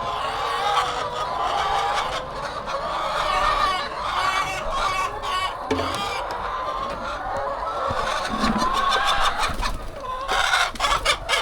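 Many hens clucking at once, their calls overlapping continuously. A quick run of sharp clicks comes near the end.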